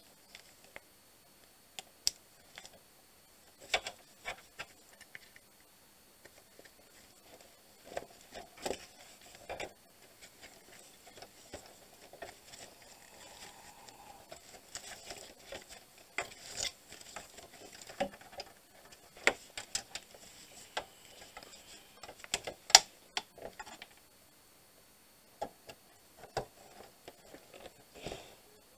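Gloved hands handling a circuit board and pushing plastic wire connectors and ribbon cables into an inverter's control card: irregular sharp clicks and taps over soft rustling, the loudest click about three-quarters of the way through.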